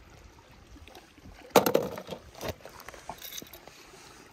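Small die-cast toy cars being handled and set down on rock: one sharp click about a second and a half in, then a few lighter taps, over a faint wash of lapping sea water.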